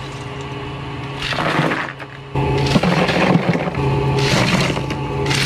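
Background music with a steady low drone that gets louder about two and a half seconds in, over ice cubes clattering and crunching in several short bursts as they are scooped with a plastic cup from an ice machine bin and tipped into a cooler full of ice.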